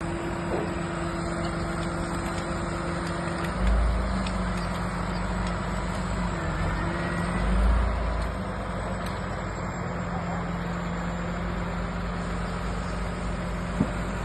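A vehicle engine running steadily, with two brief louder low surges about four and eight seconds in and a single click near the end.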